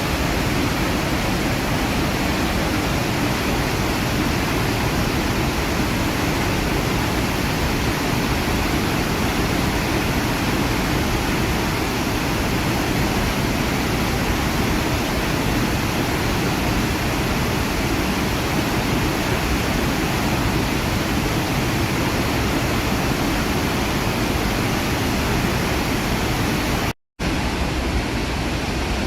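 Iguazu Falls: a steady, dense rush of falling water, heavy in the lows. It cuts out for a split second near the end and resumes with slightly less hiss in the highs.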